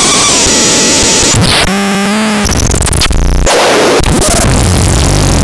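Loud harsh electronic noise: dense static that cuts abruptly from one texture to another. A wavering pitched tone with overtones comes in briefly about two seconds in, then a short buzz, before the static returns.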